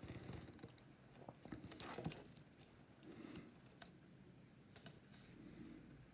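Faint scraping and light ticks of a thin blade scoring a line around a cork rod handle, cut a little at a time.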